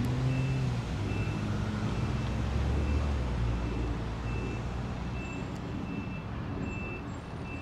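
Vehicle backup alarm beeping about once a second, a single high steady tone, over a low engine rumble from a reversing truck or work vehicle.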